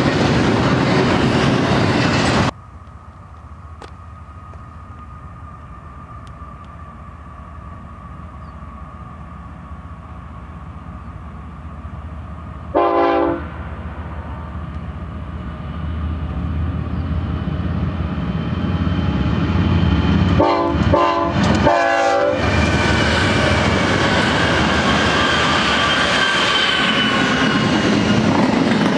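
A double-stack freight train rolls past with loud steady wheel-on-rail noise that cuts off about two and a half seconds in. Then a distant diesel-hauled freight train grows louder as it approaches. Its air horn sounds one short blast about halfway through and a couple of longer blasts about seven seconds later, before the locomotives and stack cars roll by with steady wheel and rail noise.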